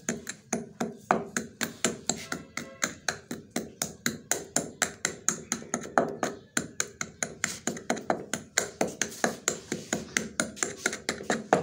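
Wooden pestle pounding gond katira (tragacanth gum) crystals in a stone mortar, a steady run of sharp strikes about four a second, crushing the gum to a fine powder.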